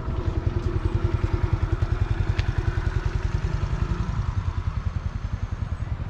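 Motorcycle engine idling, a steady fast, even beat of about ten pulses a second.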